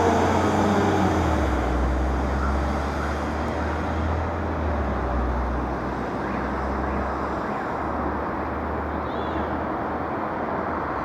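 A car passes, its engine note falling as it goes by and fading in the first second, followed by steady street-traffic noise with a low rumble that slowly quietens.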